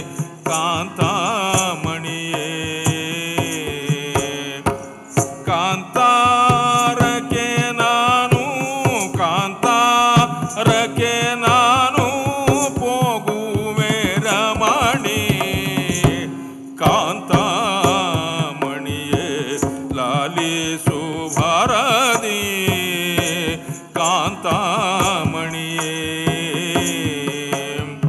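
Live Kannada singing in South Indian classical style for Togalu Gombe Aata shadow-puppet theatre: a solo voice with wavering, ornamented pitch over a steady drone, with frequent hand-drum strokes. The voice drops out briefly twice, about a third of the way in and about two-thirds of the way in.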